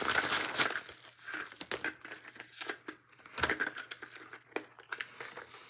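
Packaging crinkling and tearing as hands struggle to pull it open, in uneven bursts with a few sharp cracks.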